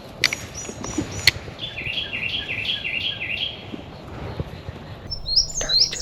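A wild songbird singing a phrase of about seven quick, repeated down-slurred whistled notes, with a second, higher and busier bird song starting near the end. Two sharp clicks come in the first second and a half.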